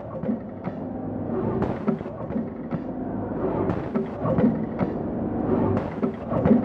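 Single-row four-side sealing liquid sachet packing machine running: a steady mechanical hum with repeated clicks and knocks from its moving sealing-jaw assembly.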